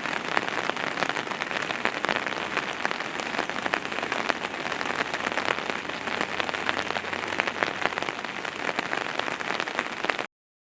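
Heavy rain falling on a surface: a dense, steady crackle of many drops. It cuts off suddenly near the end.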